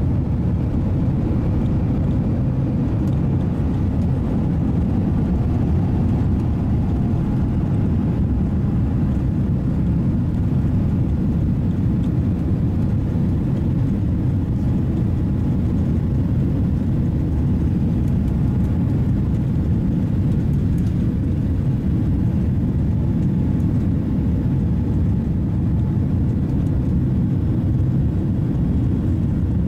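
Airliner jet engines at takeoff power, heard from inside the cabin as a steady, loud low rumble through the end of the takeoff roll and the initial climb.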